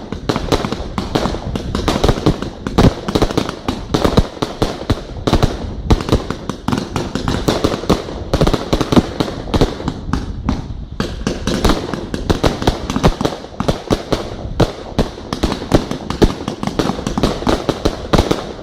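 Aerial firework shells and cakes bursting in a rapid, continuous barrage, many bangs a second with overlapping booms and crackle.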